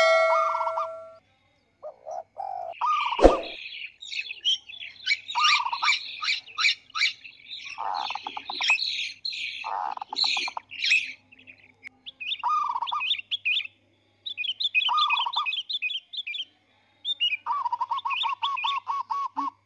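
Birds chirping and calling in quick runs of short chirps, broken by sudden silences, with a fast regular trill near the end. A ringing ding fades out in the first second.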